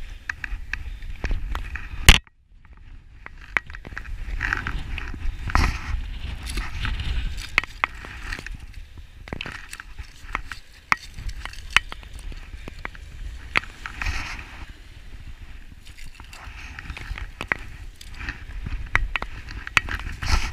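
Wind rumbling on an action camera's microphone, with scattered clicks and scrapes of a spinning rod and reel being handled while a fish is reeled in. One sharp, loud crack about two seconds in, after which the sound nearly drops out for about a second.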